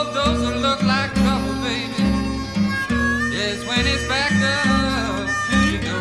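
Instrumental break of a country-blues song: plucked guitar and a walking bass line keep a steady rhythm under a lead line that slides and bends its notes.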